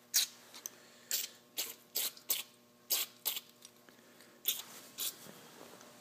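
About nine short hissing spritzes of aerosol carburetor cleaner, shot through a thin extension straw into a carburetor's jets and orifices to flush out a suspected blockage.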